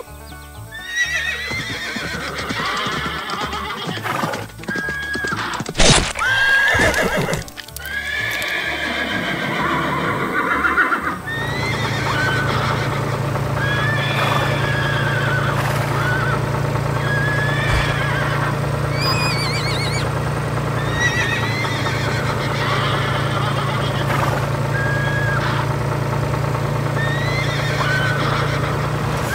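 Horses neighing and whinnying again and again over background music, with short calls that rise and fall in pitch. About eleven seconds in, a steady low tractor-engine hum joins and continues.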